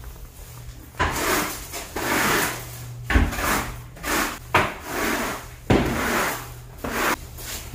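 Broom sweeping a concrete floor: about seven brisk scraping strokes, roughly one a second.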